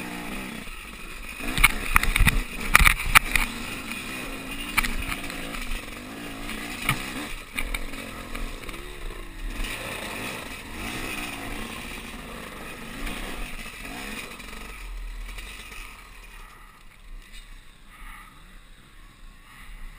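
Off-road motorcycle engine running and rising and falling in pitch as it climbs a rocky trail, with a cluster of loud knocks and clatters about two to three seconds in. It settles quieter in the last few seconds as the bike slows.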